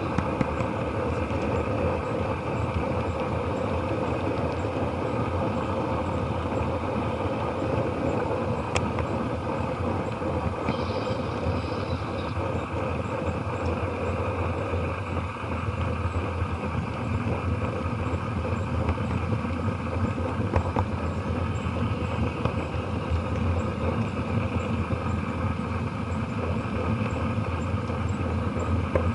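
Model train running steadily along the layout track, a continuous rolling rumble picked up from inside the moving train by an action camera in a waterproof case, which muffles it.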